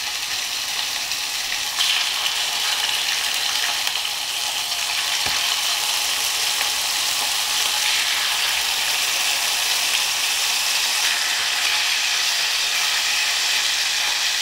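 Bone-in, skin-on chicken thighs sizzling steadily as they fry skin side down in hot ghee in an enamelled cast iron pan. The sizzle grows louder about two seconds in as more thighs go into the pan.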